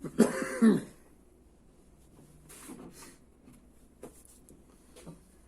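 A brief murmur of a man's voice at the start, then faint handling noises at a workbench: a soft rustle and two light clicks as small engine parts are picked up and set down.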